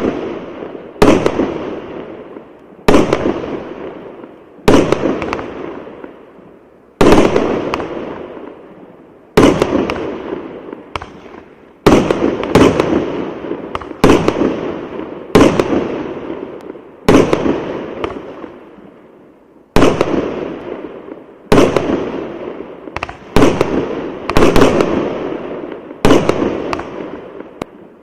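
Consumer fireworks battery ('Thunder and Lightning' cake) firing shot after shot: sharp bangs about every one to two seconds, each trailing off over a second or two before the next.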